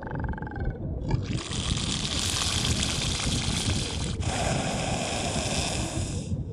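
Crabeater seal hissing with its mouth gaped wide: two long breathy hisses, one about three seconds and one about two, beginning about a second in. A short pitched moan comes just before them at the very start. The open-mouthed hiss is the species' typical threat display.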